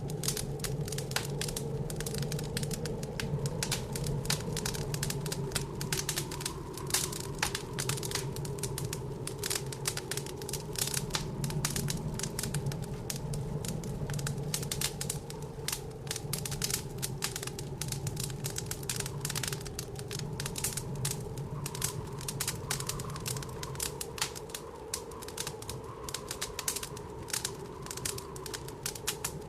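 Wood fire crackling in a fireplace, a dense run of small irregular pops and snaps, over a steady, slightly wavering low howl of blizzard wind.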